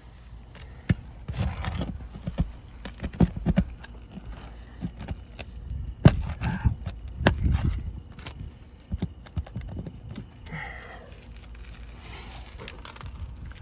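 Snake tool (shingle ripper) being worked under asphalt shingles to pull roofing nails: irregular metallic clicks, knocks and short scrapes.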